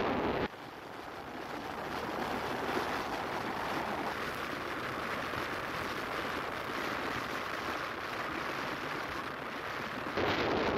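Steady city street noise, an even hiss of traffic. Wind rumbles on the microphone for the first half second and again near the end.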